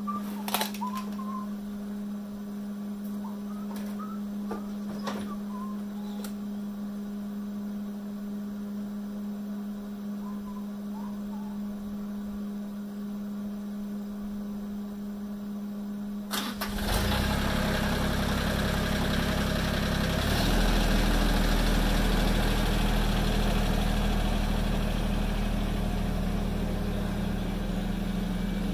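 Mahindra Max 26XL compact tractor's diesel engine starting a little past halfway through, then running, its low rumble getting heavier a few seconds later. Before it starts there is only a steady hum with a few light clicks.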